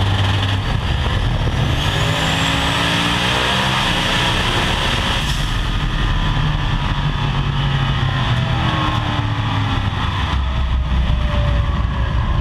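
Twin-turbocharged 622 ci Chevy big-block V8 in a 1969 Camaro drag car running hard down the drag strip, heard from inside the car. The engine is loud, and a high whistle rises in pitch over the first few seconds.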